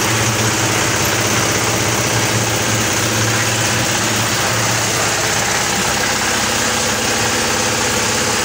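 FINIC palm fruit thresher running steadily under power: a continuous, even engine-and-machine drone.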